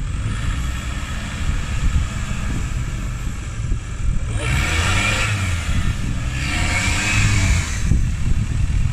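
Engine of a VW Beetle-based buggy running and revving up and down as it churns through a mud-and-water trench. Two louder rushes of noise, about halfway through and a couple of seconds later, come as the revs rise.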